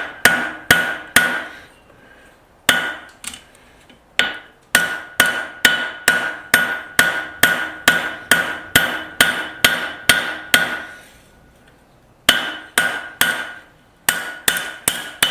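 Blacksmith's hammer striking hot steel on an anvil while forging the reins of a pair of tongs, about two blows a second in runs broken by short pauses. Each blow rings with a clear metallic tone.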